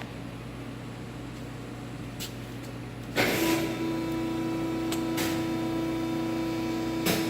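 A machine powering up: a low steady hum, then about three seconds in a sudden rush of noise as something switches on, followed by a steady whine with a few sharp clicks.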